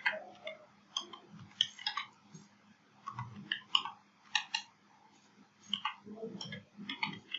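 Typing on a computer keyboard: keystrokes clicking in short, irregular runs with brief pauses between them.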